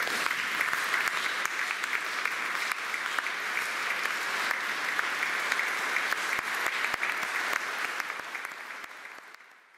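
Audience applauding steadily, a dense patter of many hands clapping, fading away near the end.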